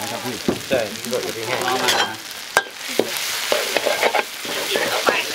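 Chilies sizzling in hot oil in a wok while a metal spatula stirs and scrapes against the pan, with one sharp clank of the spatula about halfway through.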